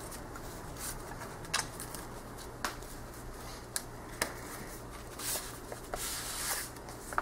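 A package being handled and opened by hand: rustling and rubbing of its wrapping, with several short sharp clicks or taps, and a longer rustle about five seconds in.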